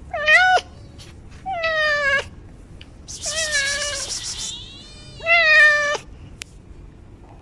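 A street cat meowing loudly four times, each call a short, wavering cry; the third call is the longest and has a rough, raspy edge.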